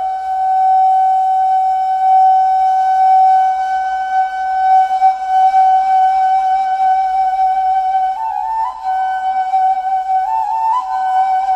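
Ney, the Turkish end-blown reed flute, playing a slow improvised taksim: one long held note for about eight seconds, then short stepwise turns up above it and back down to it.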